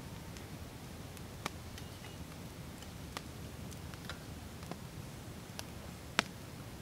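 Wood campfire crackling: scattered sharp pops and ticks at uneven intervals, the loudest a little after six seconds in.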